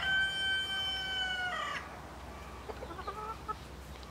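A rooster crowing: the long held final note of the crow, dropping off about two seconds in, followed around three seconds in by a few short clucks.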